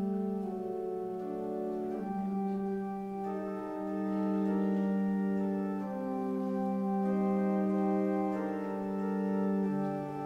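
Organ playing slow, sustained chords, the notes held and changing every second or two over a steady bass note.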